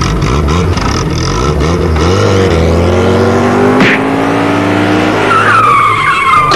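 Car engine revving, its pitch rising over a few seconds, then tyres squealing near the end before the sound cuts off abruptly.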